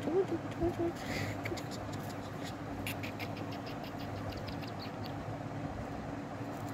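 Steady low hum, with a short pitched sound right at the start, a brief rustle about a second in and a run of light clicks around three seconds in, from a hand handling a newborn kitten on cloth and plastic sheeting in a plastic basket.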